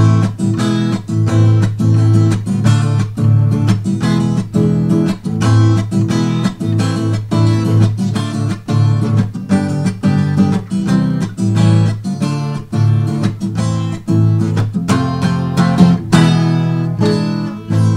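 Background music: an acoustic guitar strumming chords in a steady rhythm, an instrumental break in a song.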